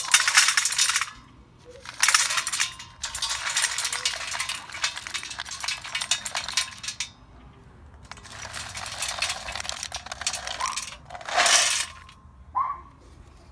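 Wood pellets poured from a plastic cup into a perforated metal hobo stove burner, clattering against the metal and each other in several pours with short pauses between, the longest lasting about five seconds.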